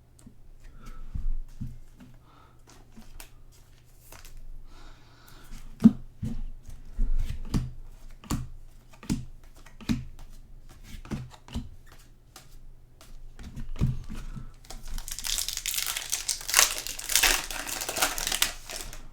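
Trading cards being handled, giving a string of light taps and flicks. Near the end comes a few seconds of crinkling and tearing as a card pack's wrapper is ripped open.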